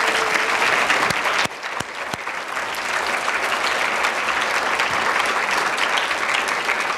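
Audience applauding, a little louder in the first second and a half, then steady.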